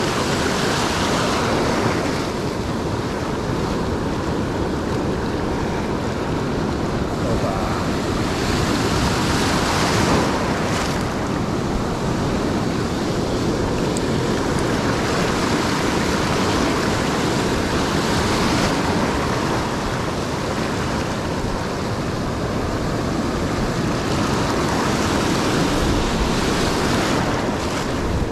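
Sea surf washing in over low shore rocks, rising and falling in surges every several seconds, with wind buffeting the microphone.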